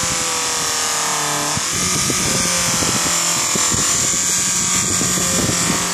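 Bench polishing machine's electric motor running with its buffing wheel spinning, a watch case held against the wheel and rubbing with a steady hiss as its scratches are buffed out. The hum sags slightly in pitch over the first second and a half, then comes back up.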